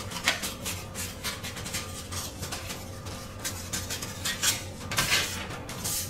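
Dressmaker's shears cutting through brown pattern paper: a run of snips one after another along a curved line, with the paper rustling.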